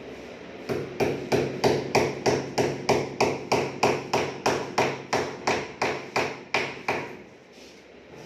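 Hammer tapping a nail into a PVC wall panel: a run of even blows, about three a second, starting about a second in and stopping about seven seconds in.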